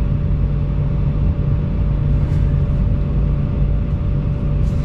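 Volvo EC220 excavator's diesel engine running steadily, with a thin steady whine over the low drone.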